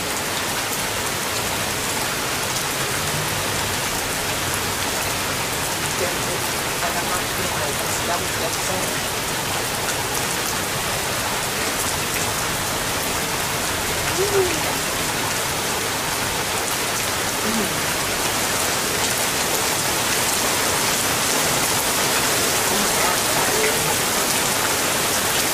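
Heavy rain falling steadily in a thunderstorm: a dense, even hiss that grows a little louder in the second half.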